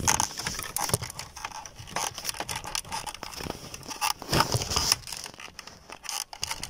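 Hands working plastic dashboard parts and a wiring connector on the car clock unit: scattered small plastic clicks and crackly rustling as the connector's plastic catch is worked.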